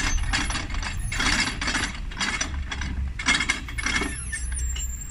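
Canal lock gate paddle gear being wound with a windlass: a run of ratcheting, clattering clicks from the gear and its pawl, about two a second, stopping about four seconds in.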